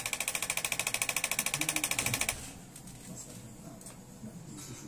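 A fast, even mechanical rattle, about a dozen beats a second, that cuts off about two seconds in, leaving faint murmuring voices.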